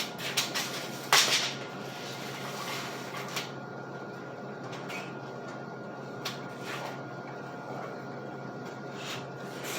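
A sharp knock about a second in, then a few scattered light clicks and taps, over a steady hum.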